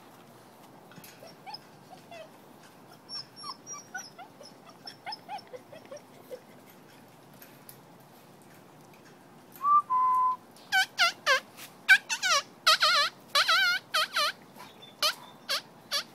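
German shepherd puppies whimpering softly, then from about ten seconds in a run of loud, high-pitched squeals and yelps.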